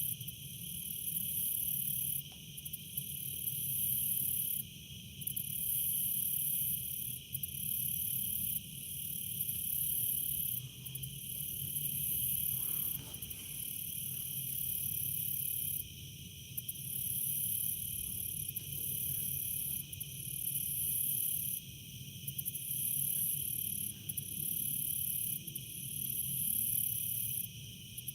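Insect chorus: several steady high trills overlaid by a still higher, louder buzz that breaks off for a moment every one to three seconds.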